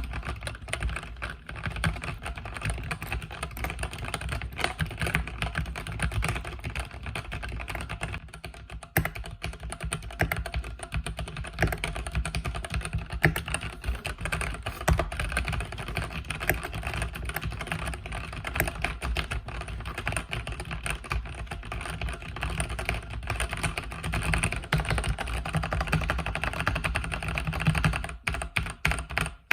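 Continuous fast typing on a mechanical keyboard with red linear switches: a dense run of key strikes and bottoming-out clicks that thins out briefly near the end.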